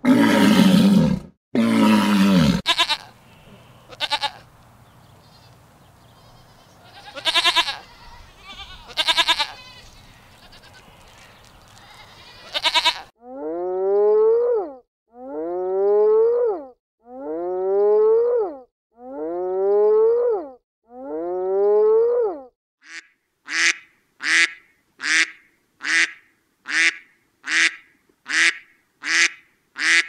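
A sequence of farm animal calls. A few loud calls come at the start. Five identical drawn-out calls follow, evenly spaced. Near the end comes a fast run of short duck quacks, about one and a half a second.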